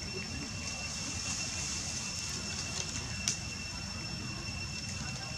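Outdoor background noise: a steady low rumble under a constant thin high whine, with a single sharp click about three seconds in.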